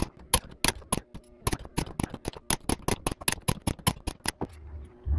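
Ratchet head of a click-type torque wrench clicking rapidly, about five clicks a second, as the wrench is swung back and forth on the differential's ring-gear bolts. The clicking stops a little over four seconds in, and a dull thump follows near the end.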